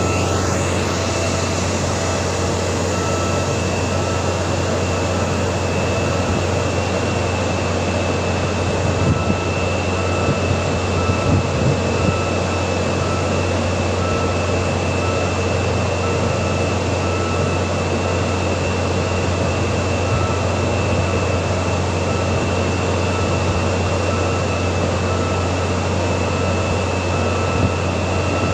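Diesel passenger train standing at the platform, giving a steady low hum with a thin, steady high whine over it, from its idling engine and coach air-conditioning.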